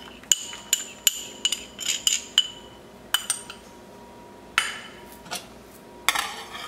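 Metal utensil clinking sharply against the cup and saucepan as cornstarch slurry is stirred into a simmering sauce, a clink about every half second at first, then a few spaced taps. Near the end a wire whisk starts beating in the saucepan with rapid clinking.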